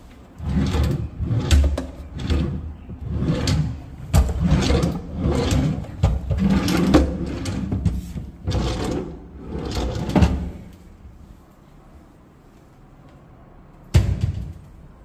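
Wooden drawers in the base of a built-in wardrobe are pulled out and pushed shut over and over, about nine short sliding rumbles in quick succession. A single sharp knock comes near the end as a wardrobe door is shut.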